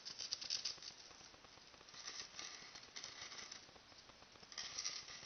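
Black felt-tip marker scratching over the cut face of a styrofoam ball in short strokes, in three spells: at the start, in the middle and near the end.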